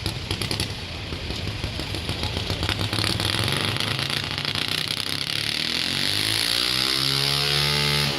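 Modified 30-cubic-inch lawn tractor pulling engine running hard under load, getting a little louder about three seconds in.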